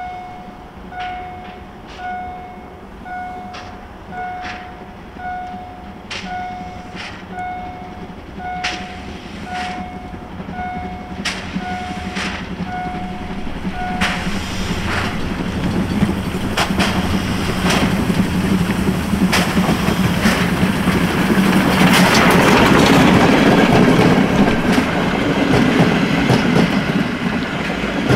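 Level-crossing warning signal beeping about twice a second while the steam tank locomotive TKh05353 approaches, its exhaust chuffing about once a second. About halfway through the beeping stops, and the locomotive and its passenger carriages pass close by, louder, with wheels clattering over the rail joints.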